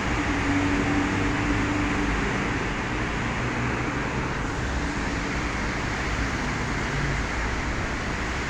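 Steady hiss of heavy rain mixed with traffic on a wet street, with a vehicle's engine hum standing out for the first couple of seconds.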